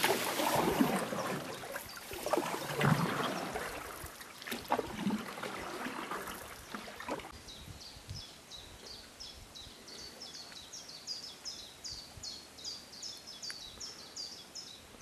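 Canoe paddle strokes splashing and water trickling in the first half, fading away; then a small songbird singing a long, quick run of high falling notes, about three a second, for most of the second half.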